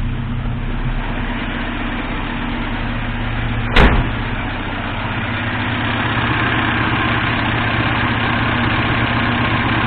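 Moskvich 412's UZAM four-cylinder engine idling steadily, running quietly and smoothly. A single sharp knock sounds about four seconds in.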